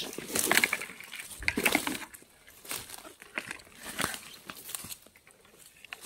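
Footsteps crackling through dry leaf litter and twigs on the forest floor, with rustling of low undergrowth, in uneven bursts about once a second that grow quieter near the end.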